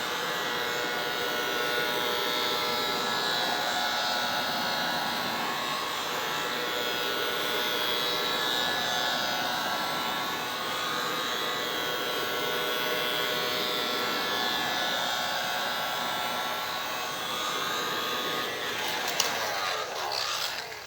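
Heat gun running steadily, a constant blowing rush with a faint motor whine, warming the display adhesive around the edge of an iMac's screen to soften the glue. A click comes shortly before it switches off near the end.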